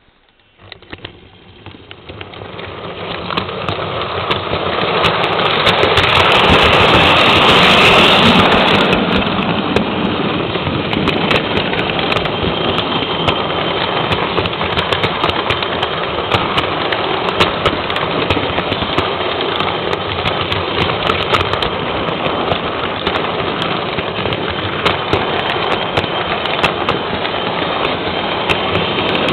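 Model electric train running with the camera riding on it: a loud, steady rattling run of motor and wheels on the track, thick with rapid clicks. It starts from rest about half a second in and grows louder over the first six seconds or so as the train gets up to speed.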